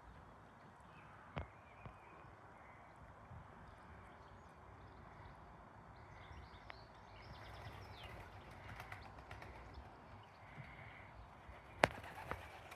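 Pigeons moving about right by the camera: light tapping and scuffling, with two sharp knocks, one about a second and a half in and a louder one near the end. Faint chirping of small birds in the background.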